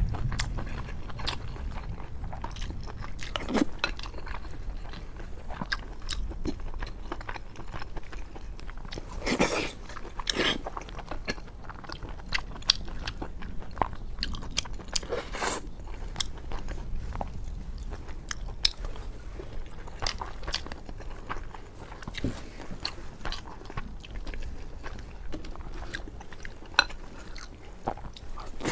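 A person eating braised pork over rice close to the microphone: chewing and mouth sounds with many small clicks throughout, and a few louder, longer sounds about nine, ten and fifteen seconds in.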